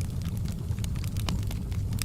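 Wood campfire burning: a steady low rumble of the flames with irregular sharp crackles and pops from the wood.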